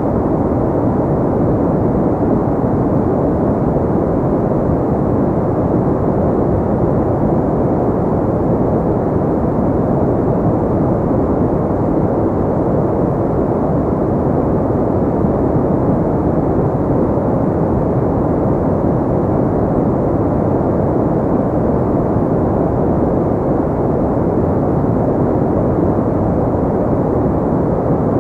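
Steady, unchanging sleep-aid noise, filtered dark so it sounds like a low, even rumbling hiss with little treble, with no changes or separate events.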